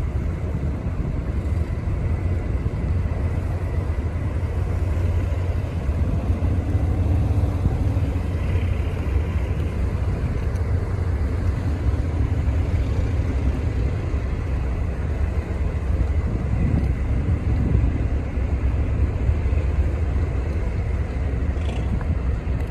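Squid-fishing boat's engine running under way with a steady low drone as the boat passes close by, with water rushing along the hull from its wake.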